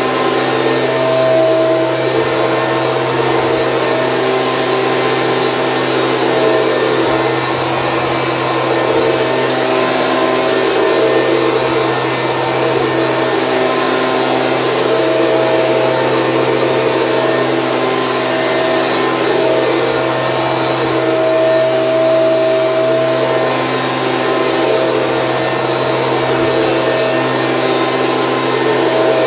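Stihl BG 86C handheld leaf blower's two-stroke engine and fan running steadily at a constant speed.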